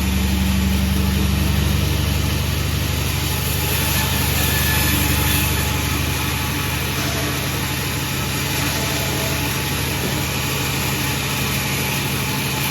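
Sawmill machinery running steadily with a low, even engine hum and a steady drone; a higher hum note drops away about two seconds in.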